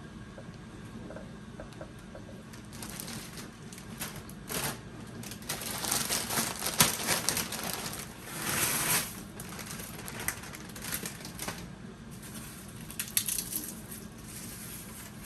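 Crinkling and crunching of a bag of tortilla chips being handled while the chips are laid into a casserole dish, in irregular bursts with a few sharp clicks, loudest from about six to nine seconds in.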